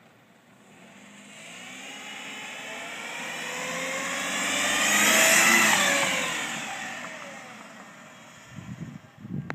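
A car drives past. Its engine note builds as it approaches, peaks about five seconds in, then drops in pitch and fades as it moves away.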